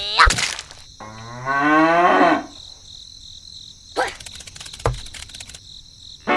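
A cow mooing: one long call, rising in pitch, starting about a second in. A sharp click comes just before it, and two fainter knocks follow later.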